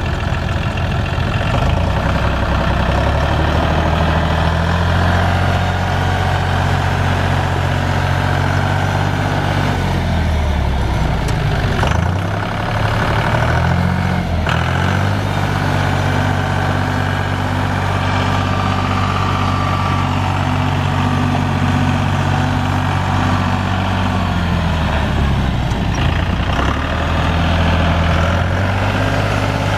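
1997 John Deere 5400 tractor's 2.9-litre three-cylinder diesel engine running, its speed changing between steady levels. The engine speed falls and picks up again twice near the middle and once near the end, with a couple of knocks near the middle.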